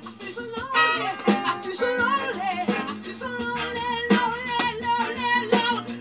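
Music played from vinyl on a DJ turntable: a song with singing over a steady beat.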